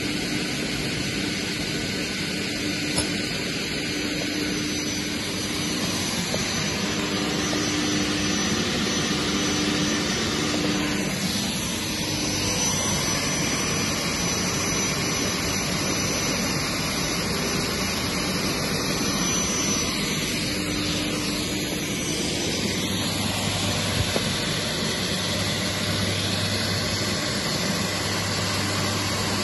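Haffner DGS 187 double mitre saw running, its 3 kW motors spinning the 500 mm blades free: a steady rushing whir, with a low hum coming in near the end.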